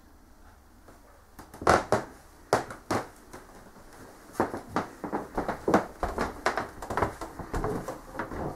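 A run of sharp, irregular clicks and knocks close by in a small wooden room: a few loud ones about a second and a half in, then coming thick and fast, several a second, from about four seconds on.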